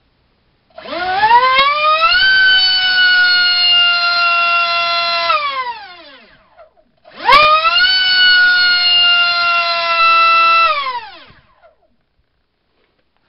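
2948-size 4800kv brushless in-runner motor spinning a 4.1×4.1 propeller at full throttle, run twice: each time a loud high whine that climbs quickly in pitch as it spools up, holds for about three seconds with the pitch easing down slightly, then falls away as it spins down.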